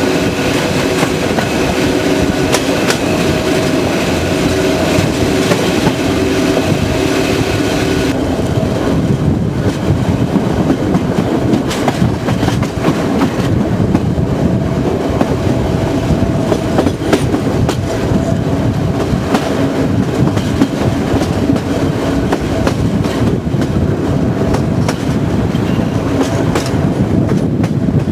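Electric-hauled passenger train running on the rails, heard from aboard: a steady rumble of wheels on track with clicks from rail joints and points. Several steady tones ride over the rumble for about the first eight seconds, then stop abruptly.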